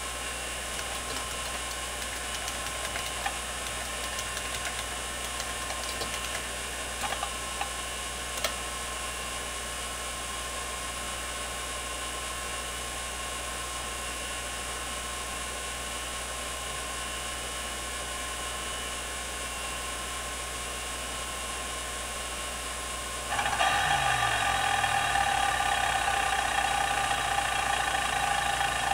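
IBM 0665-53 MFM hard drive spinning steadily, with a few isolated head-seek clicks. About 23 s in it breaks into continuous rapid seek chatter, noticeably louder: the heads being driven by a disk benchmark's seek test.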